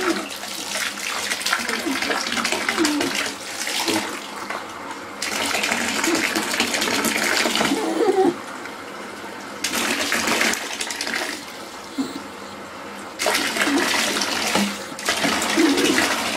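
Bathwater running and splashing in a bathtub as a dog is scrubbed and rinsed by hand. It comes in spells of a few seconds with quieter gaps between.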